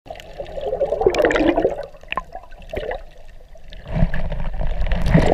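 Water churning and bubbling, heard underwater, stirred by a snorkeler kicking with fins. There are two louder surges: one about a second in, and a deeper rush near the end.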